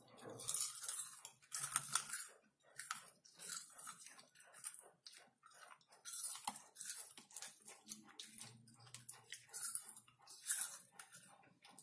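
Close-miked chewing and crunching of caramel popcorn, in quick, irregular crunches throughout, with light rustling of popcorn as hands pick through the bowl.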